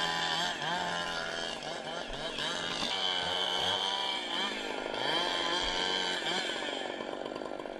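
Chainsaw running at high speed as it cuts into a tree trunk, its pitch repeatedly rising and falling as the chain loads up in the cut and recovers.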